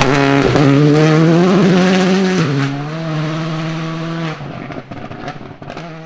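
Škoda Fabia rally car's turbocharged four-cylinder engine accelerating away, its pitch rising, dropping at a gear change about two and a half seconds in, then holding steady as it fades into the distance.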